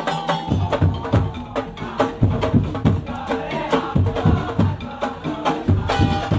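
Percussion-led music: deep drum strokes about three to four times a second, with sharp knocking hits and held melodic tones over them.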